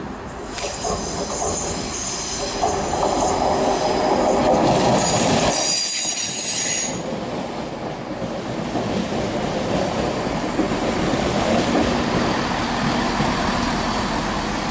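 Three-car Class 170 Turbostar diesel multiple unit braking to a stop, its wheels and brakes squealing in several high tones that grow loudest and then cut off suddenly about seven seconds in. After that the train stands at the platform, its diesel engines running steadily.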